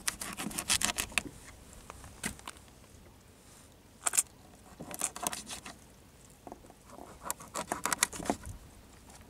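Knife chopping and slicing small fish into bait chunks on a boat's gunwale: quick crunching cuts and taps of the blade, in several short bursts with pauses between.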